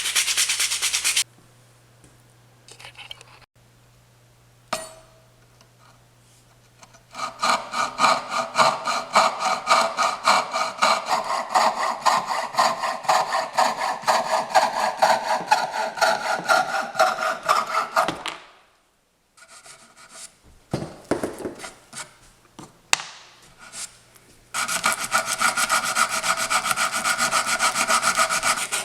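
Coping saw cutting through a small piece of wood with quick, even back-and-forth strokes, in two long spells with a pause of several seconds between them.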